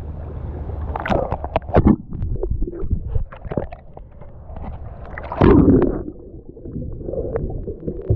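Sea water splashing and sloshing close to the microphone in irregular bursts over a steady low rumble, with one louder splash about five and a half seconds in.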